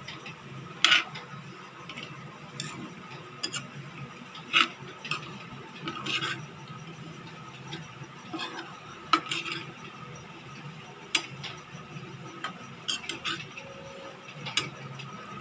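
Steel ladle stirring dry grated coconut in a steel frying pan, with irregular sharp clinks and scrapes of metal on metal over a faint steady low hum.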